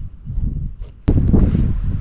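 Wind buffeting the microphone in uneven low gusts, turning abruptly louder about halfway through.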